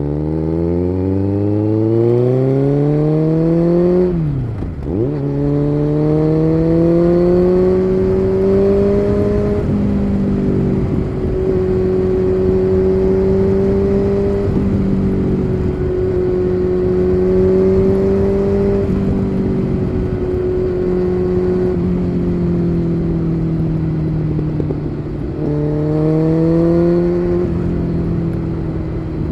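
Kawasaki Z900's inline-four engine through an SC Project aftermarket exhaust, accelerating on the road. The note climbs with the revs, drops sharply at a gear change about five seconds in, then holds a steady cruise. It rises again briefly near the end.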